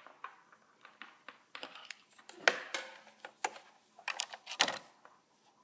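Irregular sharp clicks and knocks from handling a NeXT keyboard and its little USB adapter while hooking it up, with a few louder clicks about halfway through and near the end.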